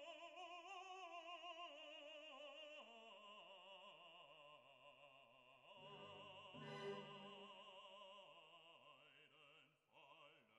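Faint music: an operatic voice singing with vibrato over orchestral accompaniment, the notes changing every second or two.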